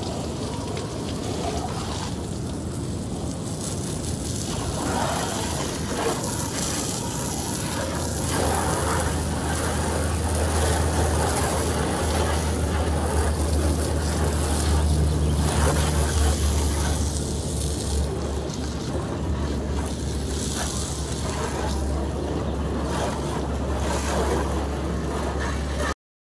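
Water spraying from a hose wand onto the side of a pickup truck, a steady hiss that swells in the middle, with a steady low hum underneath from about eight seconds in. It cuts off suddenly at the end.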